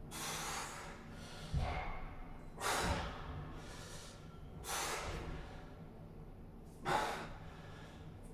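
A man breathing hard while straining to hold flexed bodybuilding back poses: five sharp, noisy breaths about one and a half to two seconds apart.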